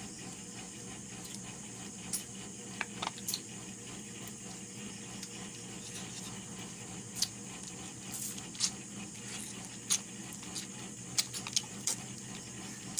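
People eating with their hands: scattered short smacks and clicks of chewing and handling food, a few early and more often in the second half, over a steady background hum.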